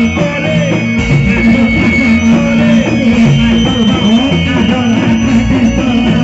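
Loud, continuous music from a Reog Indramayu ensemble accompanying the dance, with steady held tones over a beat.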